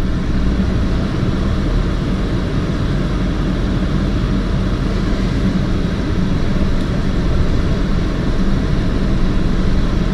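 Steady engine and road noise inside a moving car's cabin, an even low rumble with no sudden sounds.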